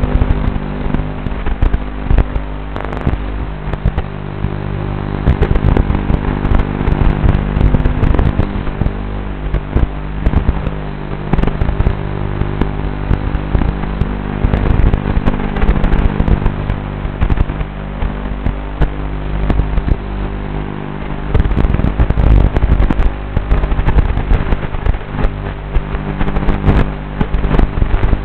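Tiny whoop micro drone's motors and ducted propellers buzzing in flight, the pitch shifting with throttle, with frequent crackles throughout.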